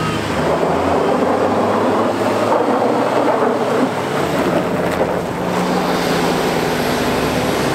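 Two off-road 4x4s, a Jeep Wrangler and a red SUV, accelerating hard from a standing start on icy snow. Both engines rev together, their pitch rising, over the noise of tyres on ice and snow, and the Jeep passes close near the end.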